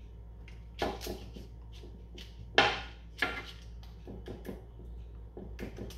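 Metal spoon clinking and scraping against a stainless steel bowl and a baking tray while scooping zucchini mixture: a handful of separate sharp clicks, the loudest about two and a half seconds in.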